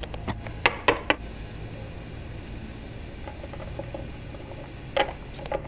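Sharp clicks and taps of plastic Littlest Pet Shop figures handled and set down on a tabletop: a quick run of four or five in the first second and one more near the end, over a steady low hum of room noise.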